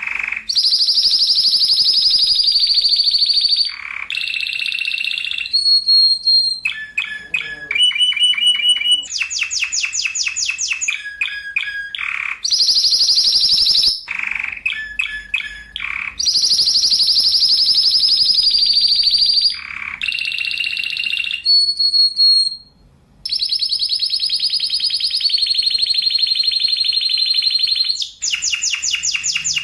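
Spanish Timbrado canary singing a continuous rolling song: long, rapid high trills held for a few seconds at a time, alternating with quicker runs of separate notes and falling sweeps, with one short break about 23 seconds in.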